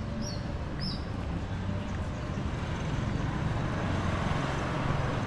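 Town street ambience: a steady low rumble of road traffic that swells a little toward the end. Two or three short, faint high chirps come in the first second.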